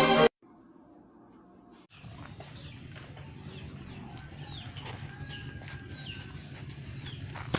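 Music cuts off right at the start; after a near-silent gap, a steady low hum comes in about two seconds in, with a series of short high chirps, like small birds calling, over it.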